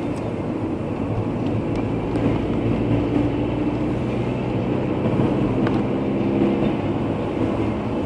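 Car driving on a road, heard from inside the cabin: a steady low rumble of engine and tyres, with a faint engine hum that shifts slightly in pitch through the middle.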